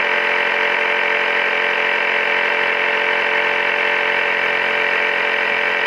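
EverStart portable 12-volt air compressor running steadily, pumping air into a one-gallon plastic water jug to pressurize it.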